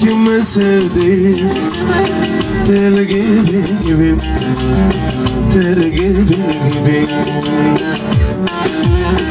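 Bağlama (long-necked Turkish saz) strummed fast with a plectrum, playing an instrumental folk melody.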